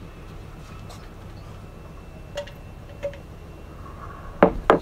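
Steel hydraulic lifters clinking against the aluminium cylinder head of a VW 2.5 TDI engine as they are handled and set into their bores: two faint clicks in the middle, then two sharp knocks close together near the end.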